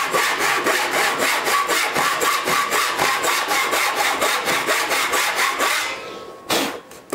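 Backsaw cutting across a pine board in quick, even strokes, sawing a dado wall down to depth. The sawing stops about six seconds in, followed by two sharp knocks near the end.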